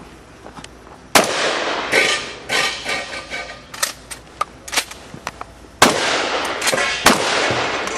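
Remington 1100 semi-automatic shotgun firing three loud shots, about a second, six seconds and seven seconds in, each with a long echoing tail. Between the first two shots there is a ragged run of smaller sharp cracks. The shots come with pauses because the gun's bolt kept locking open after each shot and had to be closed by hand.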